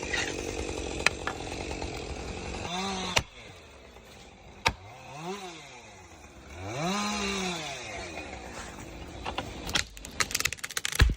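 Chainsaw running under load in a cut, then revved up and down three times, its pitch rising and falling with each blip of the throttle. A quick run of sharp cracks starts near the end.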